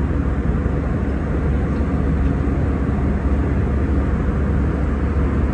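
Jet airliner cabin noise at cruise altitude: a steady rush of engines and airflow over a deep, constant hum.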